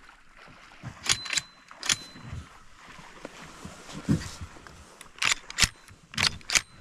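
Sharp metallic clicks and clacks from a shotgun's action as shells are loaded. One cluster comes about a second in and another after about five seconds, with a couple of duller knocks in between.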